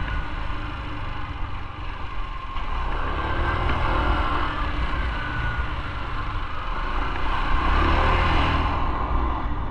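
Motorcycle engine running at low speed, with a low rumble of wind on the microphone; it gets a little louder about three seconds in and again near the end.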